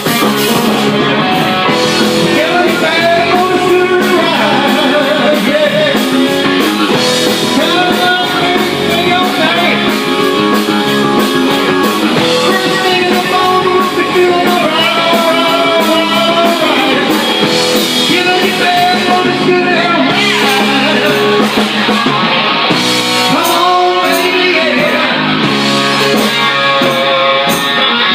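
Rock band playing loudly, with electric guitar and a singer.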